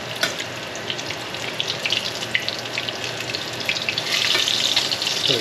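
Breaded sheepshead pieces frying in hot oil in a stainless steel skillet: a steady crackling sizzle that grows louder about four seconds in.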